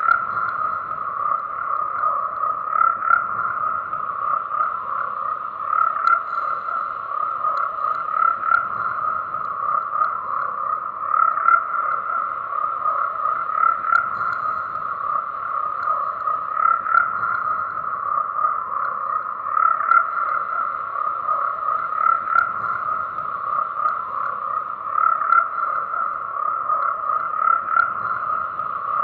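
A chorus of frogs croaking: a dense, continuous mass of overlapping calls, with louder single calls standing out every second or two.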